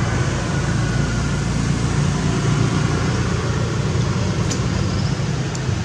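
A steady low mechanical hum, like a motor running close by, with a couple of faint clicks near the end.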